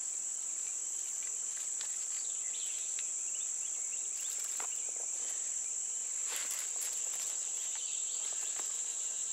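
Steady high-pitched chorus of insects, with a few faint scattered clicks and rustles as a coiled wire snare cable is handled.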